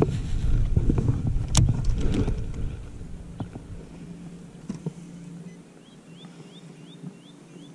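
Rumbling handling and wind noise from a baitcasting rod and reel being cast, with a sharp click about a second and a half in. After that it goes quieter, with a steady low hum, and near the end a bird calls a run of short rising chirps, about three a second.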